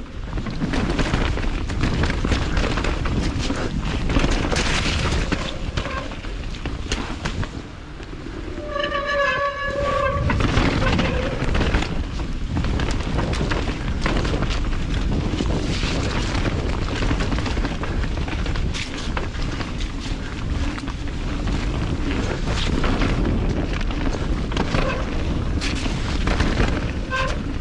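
Mountain bike riding fast down a wet, rough singletrack: constant rumble of tyres and wind on the camera, with rattling knocks over roots and rocks. A steady, pitched squeal from wet disc brakes comes in about nine seconds in and again near the end.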